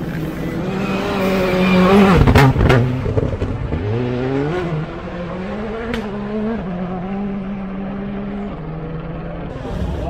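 Rally car at full throttle on a gravel stage, its engine note climbing to its loudest about two seconds in, with two sharp pops. It then shifts up through the gears as it pulls away and settles into a steadier, fainter drone.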